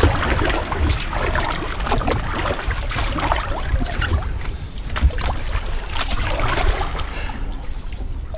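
Kayak paddle dipping into the river and water trickling off the blades, at about one stroke a second.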